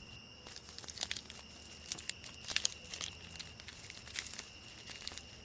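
Faint dry rustling and crinkling with scattered small ticks and crackles, over a faint steady high-pitched tone.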